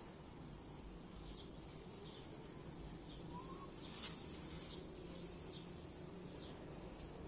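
Faint outdoor ambience with occasional short bird chirps. About four seconds in comes one brief, louder rustle as the chicken roll is lowered out of a plastic bag into the pan of oil.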